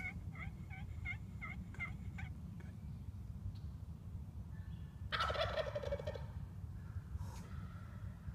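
A run of about seven quick yelping notes, then about five seconds in a wild turkey gobbler gobbles once, loudly, for about a second.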